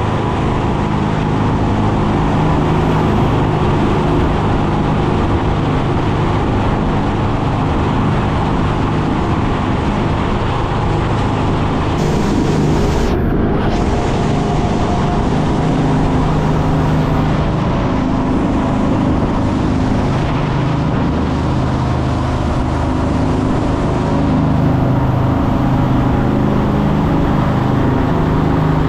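Boat engine running steadily at a constant speed, with water and wind noise.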